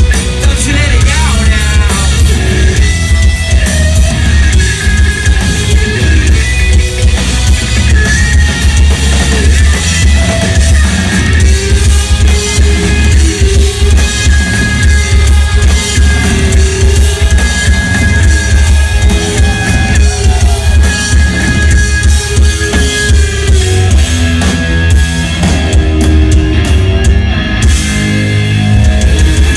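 Live rock band playing a ballad loud through a club PA, heard from within the crowd: electric guitar with held notes over drums and heavy bass.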